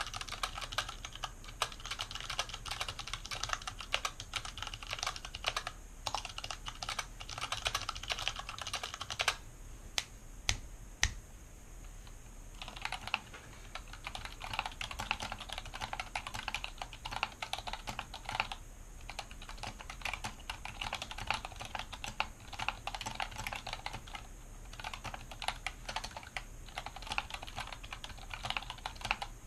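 Fast typing on a mechanical keyboard sitting on a cloth mat: a dense, continuous stream of key clicks at about 80 words per minute. About a third of the way in, the typing stops for some three seconds, broken only by a few single, louder keystrokes.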